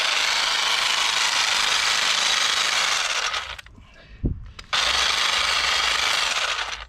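Cordless battery hedge trimmer running in two bursts: one of about three and a half seconds, then after a short pause with a single knock, another of about two seconds.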